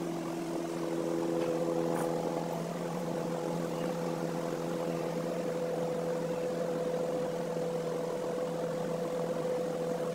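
A motor or engine running with a steady hum that holds one pitch.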